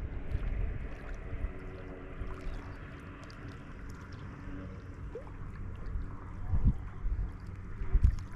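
Low rumble of wind on the microphone over faint water sounds, with a couple of dull thumps late on.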